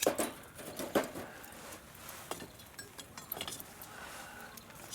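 A few separate sharp clinks and knocks of small hard objects being handled, the loudest at the start and about a second in.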